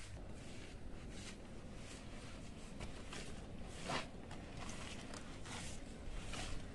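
Small hand brush with stiff plastic bristles sweeping over wet earthen ground: irregular scraping strokes about once or twice a second, with a louder scrape about four seconds in.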